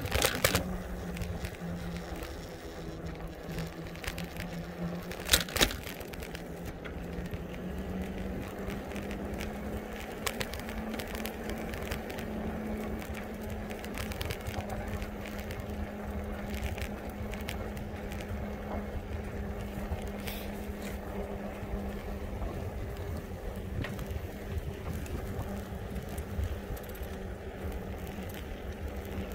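E-bike drive motor humming steadily under pedal assist while riding, over low wind and road rumble; the hum rises a little in pitch several seconds in, then holds. A few sharp knocks, one just after the start and two close together about five seconds in.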